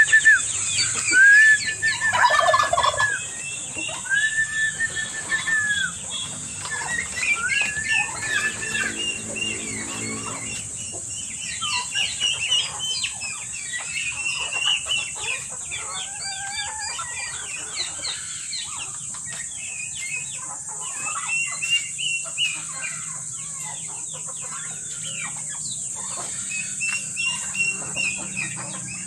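A free-range flock of chickens and turkeys calling: a few drawn-out calls in the first several seconds, then overlapping clucks and short squawks.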